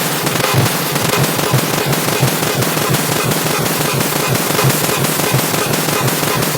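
A car horn beep sound effect stacked so many times over that it has merged into a loud, harsh wall of clipped noise, full of rapid irregular crackling pops, with only faint traces of the horn's tone left.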